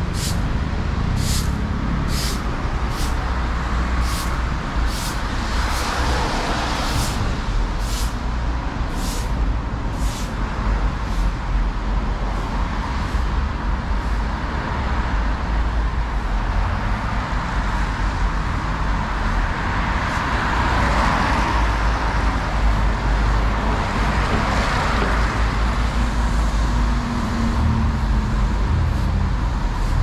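Steady city road traffic, with vehicles passing in swells and a deep engine drone near the end. Over the first third, regular crunches in snow come about one and a half times a second, then fade out.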